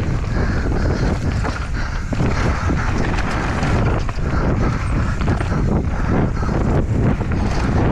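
Mountain bike descending a rough trail, heard from a camera on the rider: heavy wind buffeting the microphone, with tyres on dirt and frequent knocks and rattles from the bike over rough ground.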